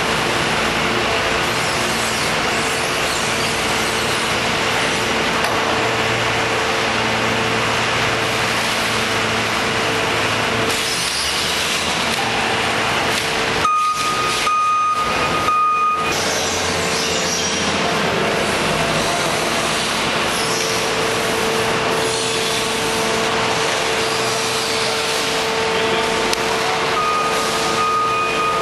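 Counterbalance forklift running steadily as it manoeuvres with a bale clamp, with a constant mechanical hum. A steady high warning-like tone sounds for about two seconds around halfway through and again near the end.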